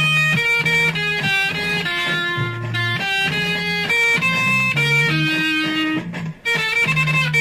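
Electric guitar played through a Maestro Fuzz-Tone pedal: a melody of short and held notes with a thick, buzzy distorted tone. There is a brief break about six seconds in.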